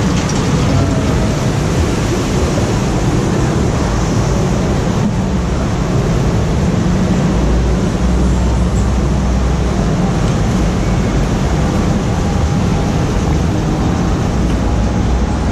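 Water rushing down a raft-ride channel, heard from on board a round rubber raft riding it: a loud, steady rush.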